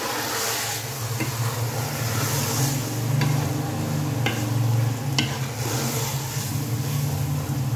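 Metal spoon stirring chopped long beans into fried minced meat and oil in a pressure-cooker pot, with a steady sizzle and a few sharp clicks of the spoon against the pot. A steady low hum runs underneath.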